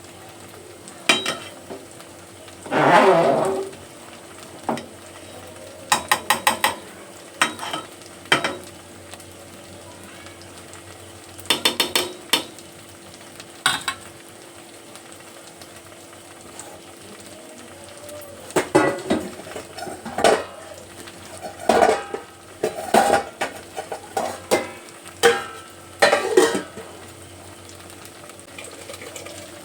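A metal spoon scraping and clinking against a cooking pot in short bursts of stirring, over a steady hum.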